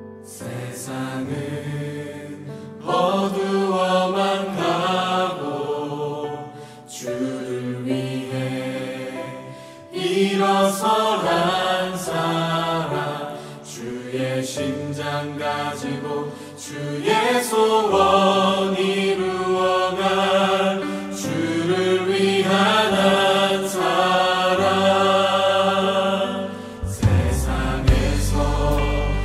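Music: a song with sung vocal phrases over instrumental accompaniment; a deep bass comes in near the end.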